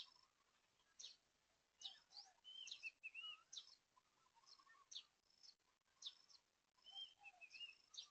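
Faint birds chirping: short high chirps and quick slurred notes, repeating every second or so.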